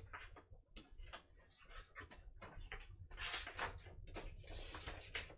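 Vinyl record and its sleeves being handled: a string of light clicks and taps, with a longer stretch of sliding and rustling about three seconds in.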